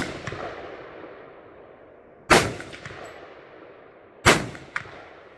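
Kodiak Defence WK-180 semi-automatic rifle firing 5.56 NATO hollow-point rounds: two sharp shots about two seconds apart, each followed by a long rolling echo. At the start, the echo of a shot fired just before is still dying away.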